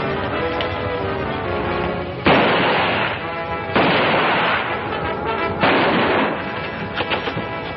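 Three gunshots, the second about a second and a half after the first and the third about two seconds later, each trailing off in a short ringing tail, over orchestral film music.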